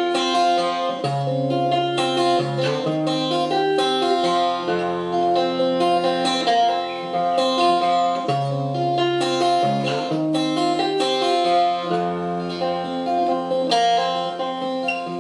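Steel-string acoustic guitar played solo: an instrumental passage of ringing picked notes over a bass line that changes every second or two.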